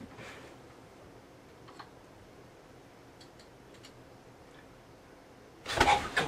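A few faint, small ticks and clicks in a quiet room. Near the end comes a loud, brief rustling whoosh as a bed blanket is flung about.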